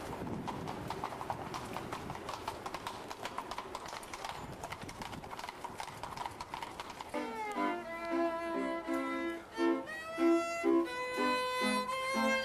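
Horses' hooves clip-clopping on cobblestones as carriages pass, over street noise. About seven seconds in, this gives way to street violin music with a lively, rhythmic tune.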